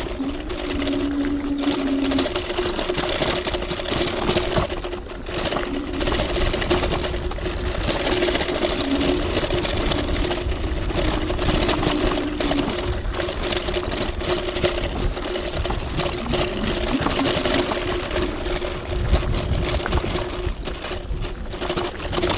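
TRBK-M2 electric hyperscooter riding over a rough dirt trail: a steady motor whine, with constant rattling and knocking as the scooter jolts over the bumpy ground.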